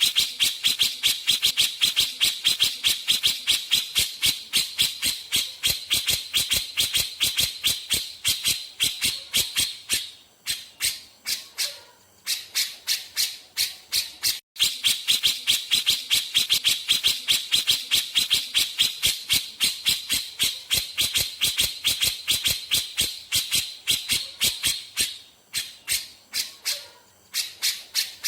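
Cucak jenggot (grey-cheeked bulbul) singing a rapid-fire run of sharp, high repeated notes, about six a second. The runs are long, with a sparser stretch in the middle, and the same run comes round twice.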